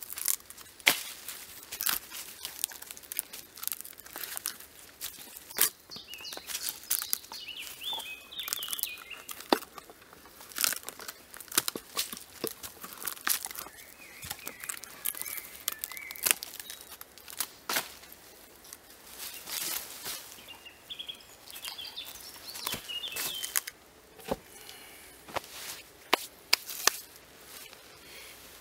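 Loose bark and soft rotten wood being torn and pried off a decaying log, a run of irregular cracks, snaps and crackles.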